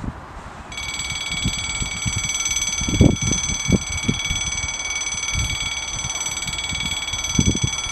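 A high-pitched electronic alarm switches on abruptly about a second in and rings on steadily with a fast flutter, over wind buffeting the microphone.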